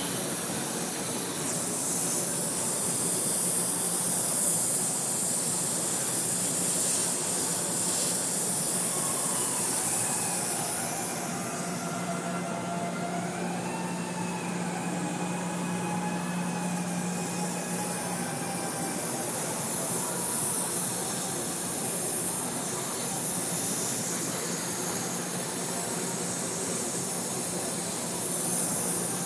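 KT20-120 hydrogen torch flame burning with a steady high hiss as it heats the steel for a weld. The hiss fades somewhat midway, while a steady low hum underneath grows stronger.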